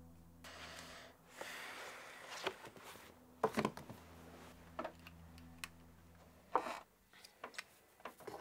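Faint rustling over a low steady hum, followed by a scattering of soft clicks and knocks, the loudest about three and a half and six and a half seconds in.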